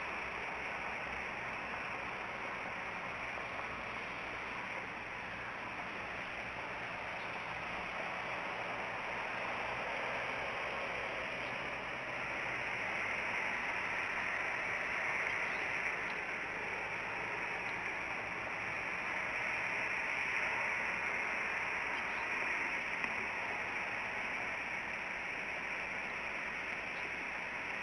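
Steady outdoor rushing hiss picked up by the wildlife-camera microphone, growing slightly louder about halfway through, with a few faint ticks.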